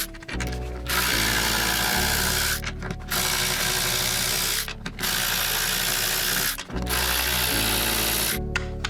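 Ryobi USB Lithium 4V cordless electric ratchet running in repeated bursts of about a second and a half, with short pauses between, as it spins nuts off bolts one after another.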